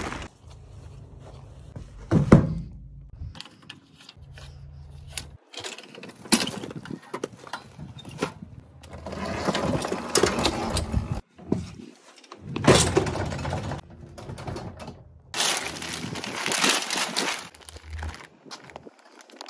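A rapid string of yard-work handling sounds that changes abruptly every second or two: knocks and thunks, rustling and scraping, with a low steady hum in the first few seconds.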